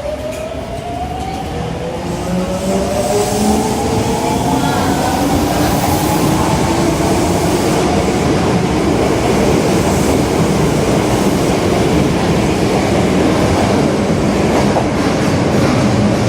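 Osaka Metro 22 series subway train accelerating away, its traction motor whine rising in pitch as several parallel tones over the first several seconds. The whine then gives way to the steady, loud rumble and rail clatter of the train running at speed.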